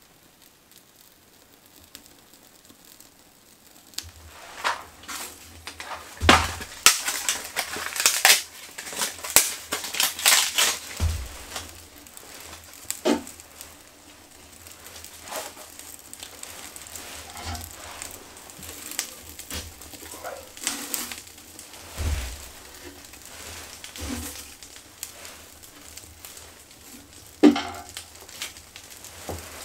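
A fire being lit in a small sheet-metal box wood stove: kindling and wood shavings crinkle, snap and knock against the firebox as they are handled and pushed in, and the kindling crackles as it catches. After a quiet few seconds comes a dense run of crackling, then sparser crackles and knocks, with one sharp knock near the end.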